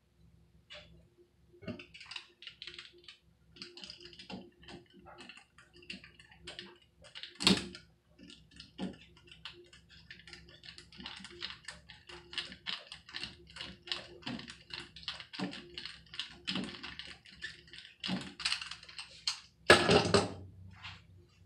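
Screwdriver turning a rusted screw out of a metal faucet handle: a fast, irregular run of small metallic clicks, with a sharper click about seven seconds in and a louder clatter near the end.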